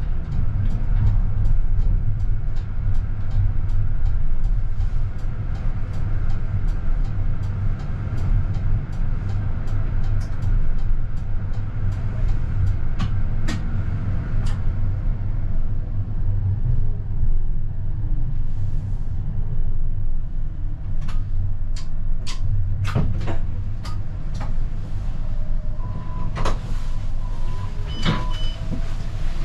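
CAF Urbos 100 tram running slowly, heard from the driver's cab: a steady low rumble with regular clicks about twice a second for the first dozen seconds. A falling whine follows as the tram slows, and there are a few sharp knocks and brief tones near the end.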